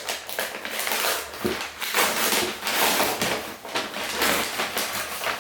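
Rustling and crinkling of packaging as LEGO set contents and instruction booklets are handled: irregular bursts of papery, plasticky noise.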